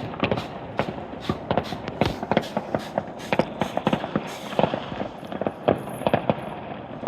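Fireworks going off in a rapid, irregular string of sharp bangs and pops, several a second.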